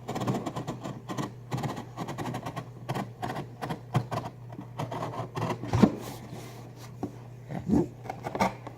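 Box cutter blade sawing and slicing through a cardboard box, a run of irregular rasping strokes and clicks, over a steady low hum.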